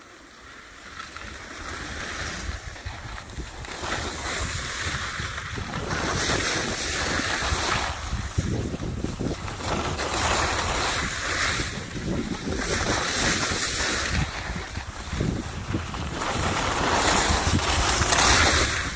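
Wind rushing over the microphone of a skier's camera on a fast downhill run, a steady low buffeting that grows louder over the first few seconds. Skis scrape across firm groomed snow in a hiss that swells about every one and a half to two seconds with each turn.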